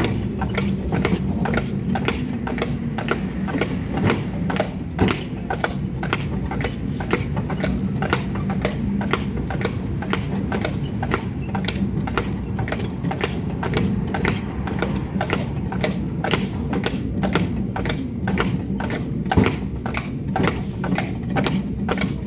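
A shod draught horse's hooves clip-clopping steadily on the road, about three strikes a second. Under the hoofbeats runs the continuous low rumble of the horse tram's car rolling on its rails.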